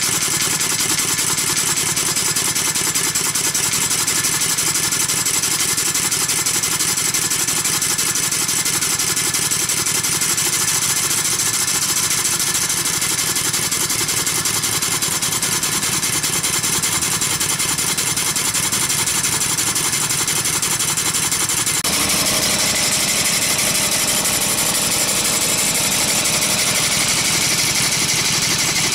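Single-cylinder lawn mower engine, converted to run on compressed air and fitted with a muffler, running steadily as a fast, even stream of exhaust pulses. The sound turns brighter about two-thirds of the way in.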